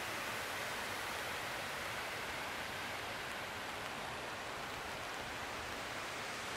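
A steady, even hiss with nothing standing out and no change in level.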